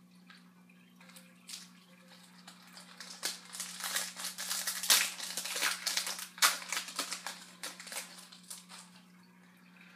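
Hockey card pack wrapper being torn open and crinkled by hand, an irregular run of crackles that builds to its loudest in the middle and then tails off.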